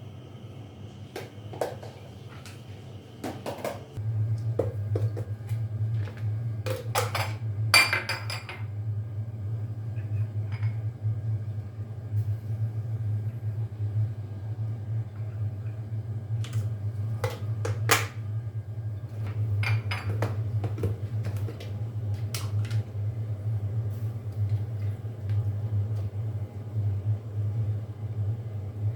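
Dishes and utensils clinking and knocking as kitchenware is handled and set down. A steady low hum starts about four seconds in and runs on under the clinks.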